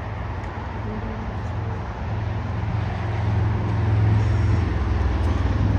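Low, steady airport rumble of distant jet engines and ground traffic, swelling louder about two seconds in and then holding.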